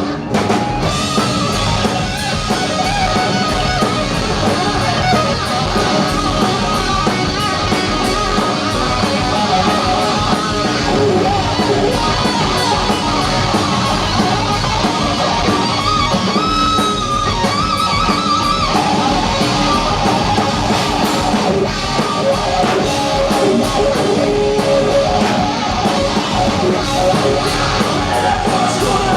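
Rock band playing live: an electric guitar lead over drums and bass, with no singing.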